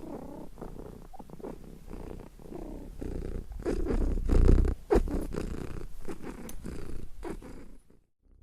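Domestic cat purring in waves that rise and fall with its breathing, loudest about halfway through, then stopping shortly before the end.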